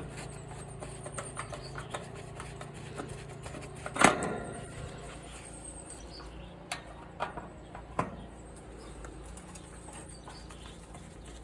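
Screwdriver and hands working at the screws of an outdoor air-conditioner unit's sheet-metal shell: scattered small clicks and scrapes, with a sharp knock about four seconds in and a few lighter knocks a few seconds later.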